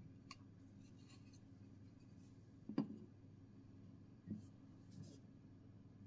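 Small clear-acrylic-cased circuit board being handled: faint plastic clicks, one sharper knock about three seconds in and two softer knocks near the end, over a low steady hum.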